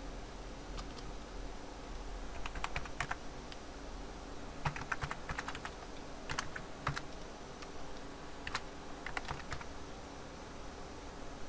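Computer keyboard typing in four short bursts of keystrokes with pauses between them.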